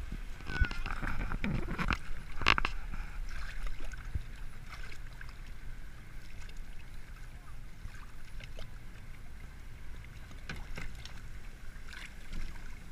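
Log flume boat moving along a water-filled trough, water rushing and sloshing against its hull, with a few brief knocks.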